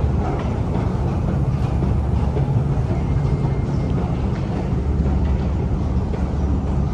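Steady low rumble of city street traffic, with an even hiss above it and no break.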